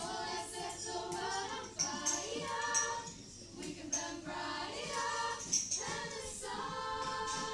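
A small group of girls singing together in harmony, accompanied by violins and cello, with a long held chord near the end.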